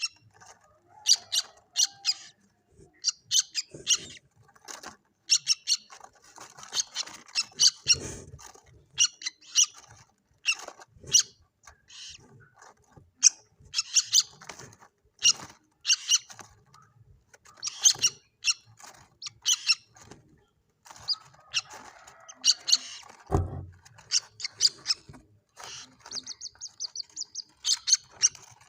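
Common moorhen chicks calling: quick clusters of short, high chirps repeated over and over. There is a low thump about two-thirds of the way through.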